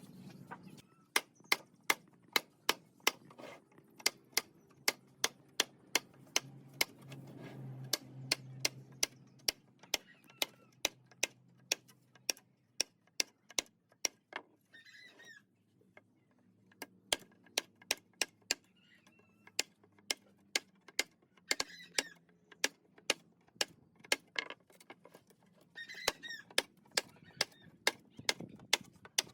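Steady series of sharp taps on wood, about two a second, from hand-tool work, with a pause of a few seconds about halfway through. A few short bird chirps come in between the taps.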